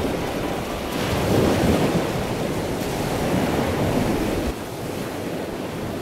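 Atlantic surf breaking and washing up the beach, with wind rumbling on the microphone. The sound drops a little quieter about three-quarters of the way through.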